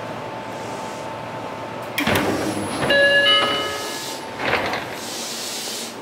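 Train's sliding passenger doors opening about two seconds in: a sudden burst of air hiss and door movement over the stopped train's steady hum. A short chime of a couple of tones follows, then another brief burst of noise.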